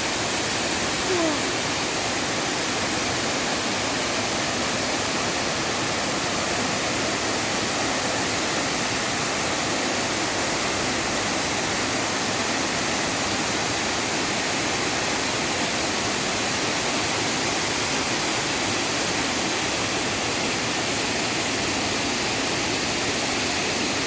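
Steady, unbroken rush of water, as from a waterfall or fast-flowing stream.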